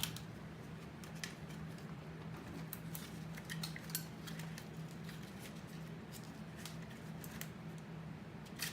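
Scattered small clicks and taps of the plastic and metal parts of a car navigation head unit being handled and worked apart by hand, over a faint steady low hum.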